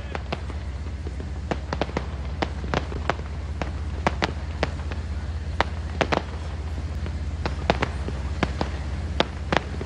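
Fireworks bursting: a run of sharp, irregular bangs and cracks, roughly two a second, over a steady low rumble.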